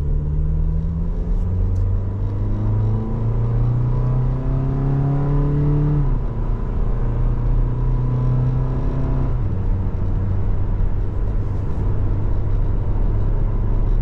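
2023 Toyota Tacoma SR's 2.7-litre four-cylinder engine under hard acceleration, heard from inside the cab: it revs up, drops in pitch at an upshift about six seconds in, revs up again, shifts once more a few seconds later, then runs steadily.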